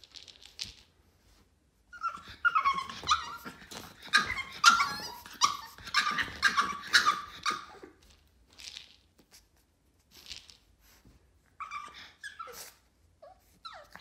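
Boston terrier puppy throwing a tantrum over a treat ball held out of reach: a dense run of growling and barking for about six seconds, then a few quieter growls and short whines near the end.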